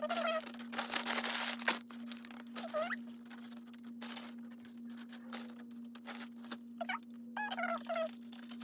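Sped-up nacho-making sounds: short bursts of rustling, crinkling and clatter, with a few brief squeaky chirps over a steady low hum.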